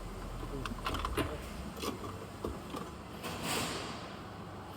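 Hard clicks and knocks with a short scraping rush about three and a half seconds in, as the plastic HVAC housing is worked loose from under the dash.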